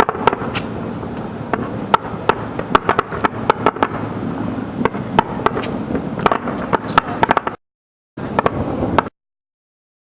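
Fireworks display going off: a rapid, irregular run of sharp bangs and cracks over a continuous rumble. The sound cuts off suddenly about seven and a half seconds in, returns for about a second, then cuts off again.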